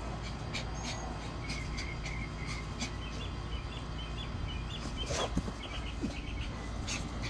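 Small birds calling in short, repeated series of chirps, over a steady low rumble. Scattered light clicks and scuffles come from two dogs play-wrestling on grass, loudest about five seconds in.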